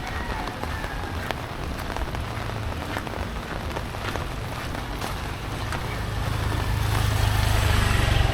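Heavy typhoon rain falling on surfaces, with many sharp individual drop strikes. A low rumble builds underneath and grows louder over the last couple of seconds.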